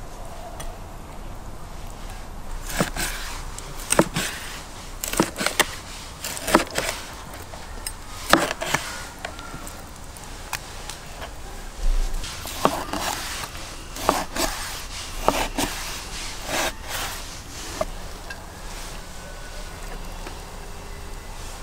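Knife cutting sturgeon into chunks on a wooden cutting board: irregular sharp knocks of the blade striking the board, spaced a second or more apart.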